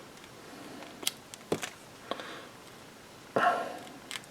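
Small clicks and taps from handling the opened iPhone 6s and its repair tools: two sharp clicks about a second in, half a second apart, a fainter one after, then a louder brief rustle or scrape near the end.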